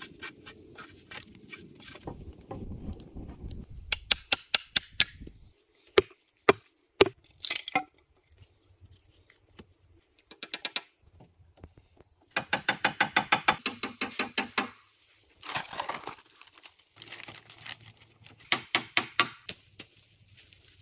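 Hand-tool work on wood: sharp knocks and strikes on timber in several quick runs of evenly spaced blows, with short pauses between. A low crackling rumble, like brush and dry wood being broken, runs under the first few seconds.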